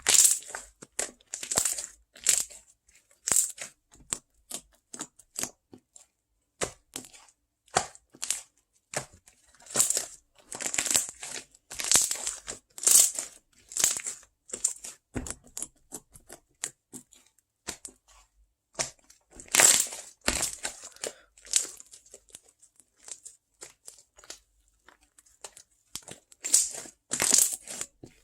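Irregular crisp crunching and crinkling close to the microphone, in quick uneven bursts with short pauses between them.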